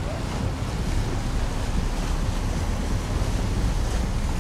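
Steady wind rush buffeting the microphone over churning water, heard from aboard a boat underway.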